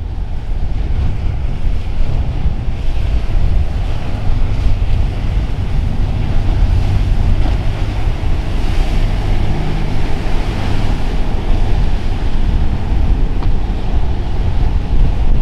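Gusty wind buffeting the microphone over the wash of rough surf, with a sportfishing boat's engines running underneath as it crosses the waves and throws spray.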